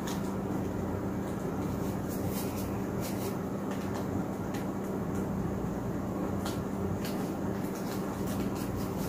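Steady low mechanical hum with a strong, even drone, and scattered faint clicks and rustles from the canvas being handled and tilted over the drop cloth.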